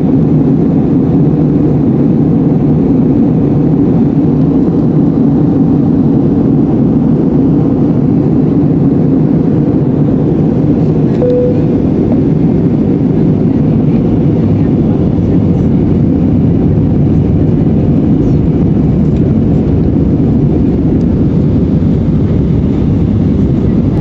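Steady, mostly low cabin noise of an Airbus A319 in descent, heard from a seat by the window over the wing. A short faint tone sounds once about eleven seconds in.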